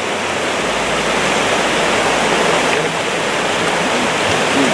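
A rocky mountain trout stream rushing through a riffle: a steady, loud rush of running water.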